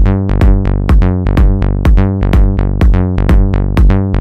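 Melodic techno played live: a steady kick drum about two beats a second under a plucked synth line repeating short notes.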